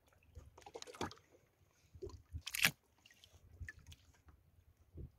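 Seawater splashing and sloshing around a camera held at the surface, with scattered clicks and crackles and one louder splash about two and a half seconds in.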